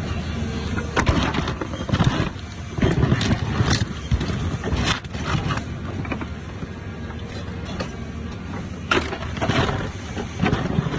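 Excavator diesel engine running steadily under load while its rock ripper tooth tears into rock, giving repeated sharp cracks and scrapes of breaking rock in clusters over the first few seconds and again near the end.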